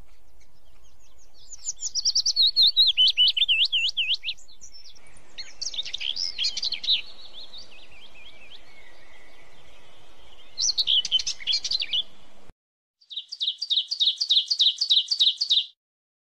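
Songbirds singing: several phrases of high, quickly repeated chirps and whistles with short pauses between them. The last phrase is a fast even trill of about five notes a second that stops suddenly.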